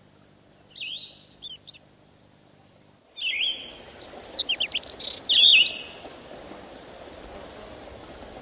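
Birds singing outdoors: a short phrase repeated several times, mixed with quick high chirps over a steady high hiss. About three seconds in, the background gets louder and the calls come thicker.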